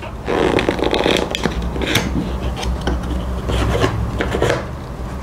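Cardboard camera box being opened by hand: the tuck flap and its tab rubbing and scraping out of the slot, with small clicks and rustles of the card.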